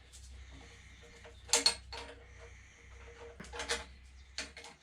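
Metal hand tools clinking against engine fittings in three short bursts of sharp clicks, over a faint low hum that cuts off just before the end.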